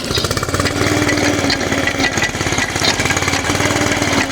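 A small engine running steadily at a constant speed, with a fast, even pulse.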